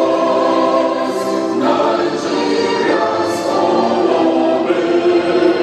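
An anthem sung by a choir, slow held notes in several voices.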